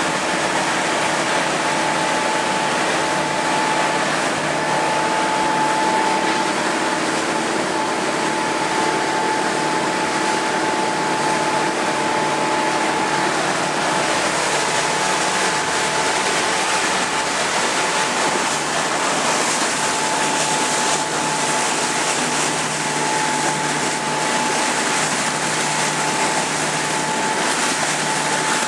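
A motorboat's engine running at a steady cruising drone with a constant hum, over the rush of water and wind against the hull. The hiss of water and wind grows stronger about halfway through.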